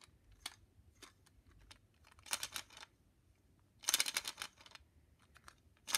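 Plastic LEGO bricks clicking and clattering as they are handled and fitted together: scattered single clicks, with two short flurries of rapid clicks about two and four seconds in.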